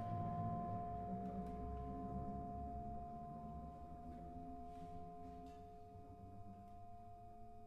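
A very quiet passage of symphonic band music: a few held, bell-like ringing tones fade slowly over a soft low rumble, with a few light taps.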